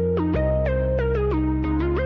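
Background instrumental music: a melody of short, stepping notes over held bass notes that change every second or so.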